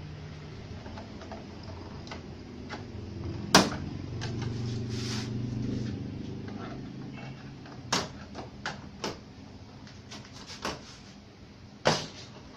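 Hard plastic knocks and clicks from handling a flat-screen TV's plastic back cover and stand: one sharp knock about three and a half seconds in, a few lighter clicks later, and another strong knock near the end, over a low steady hum.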